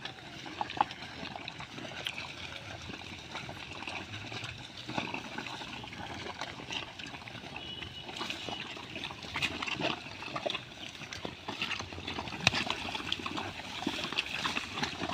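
Pigs grazing and rooting: a steady run of small crackling, chewing and snuffling clicks from the animals feeding.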